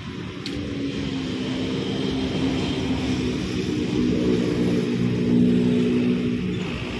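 A motor vehicle's engine running, growing louder to about five seconds in and then easing off.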